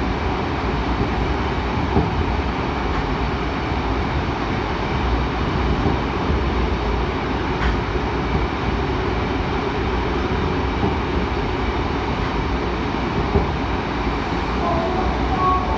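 Seoul Metro 7000 series subway train running between stations: a steady rumble of wheels on rail, with a few faint clicks. A faint wavering tone comes in near the end.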